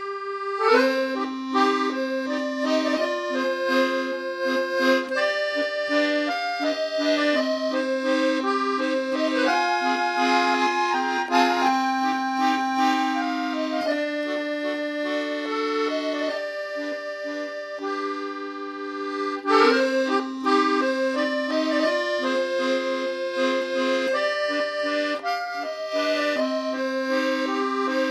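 Instrumental background music: a melody over a steady held low note, with reedy sustained tones.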